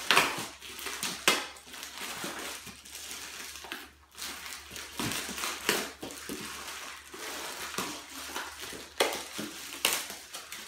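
Plastic shrink wrap crinkling and tearing in irregular bursts as it is pulled and ripped off a tightly wrapped box.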